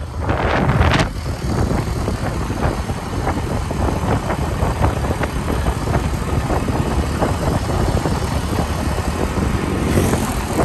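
Motor vehicle engine running steadily, with wind buffeting the microphone and a strong gust about a second in.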